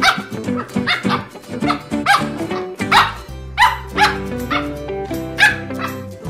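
Samoyed puppy yipping over and over in short, high, rising calls while it plays, over background music with plucked notes.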